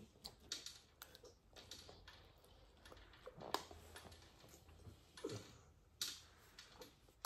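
Faint, scattered clicks and scrapes of a metal spoon against a plate as food is scooped up, with two slightly louder clicks about three and a half and six seconds in.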